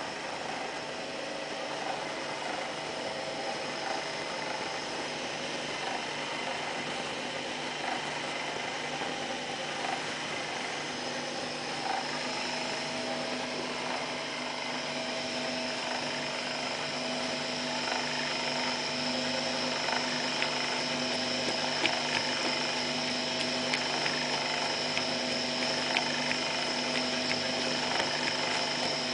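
Electric motor driving a small screw oil press through a reduction gearbox, running steadily with a whine. Small ticks from the press come more often in the second half, as the sound gets slightly louder.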